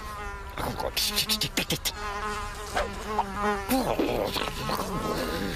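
Cartoon sound effect of a housefly buzzing about, its buzz rising and falling in pitch as it flies.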